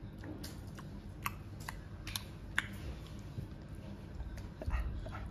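A toddler chewing corn kernels from the cob: small, sharp mouth clicks and smacks, irregularly spaced, a few a second, then a dull bump near the end.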